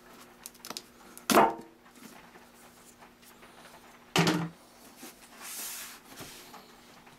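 Cardboard shipping box being opened: two loud, sharp rips about three seconds apart, then a short scraping rustle.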